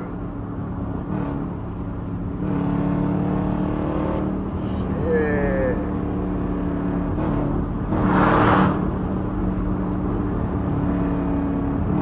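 Jeep Grand Cherokee's 5.7-litre HEMI V8 and tyre noise heard from inside the cabin at freeway speed. The engine drone is steady and grows louder about two and a half seconds in, and a brief rushing hiss swells up about eight seconds in.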